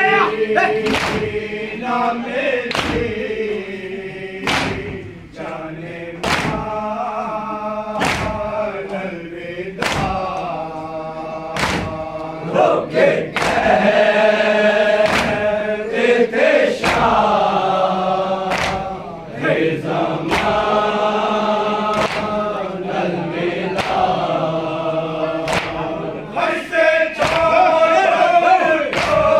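A group of men chanting a Shia latmiyah lament in unison, with sharp hand slaps on the chest (matam) keeping an even beat about once a second.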